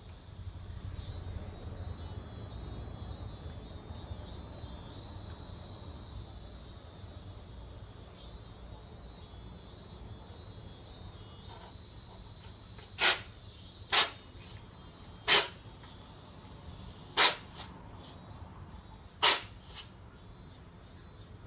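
A cat sneezing five times in a row, short sharp sneezes a second or two apart starting about halfway through, set off by fur after grooming in a cat prone to allergies. Crickets chirp steadily in the background.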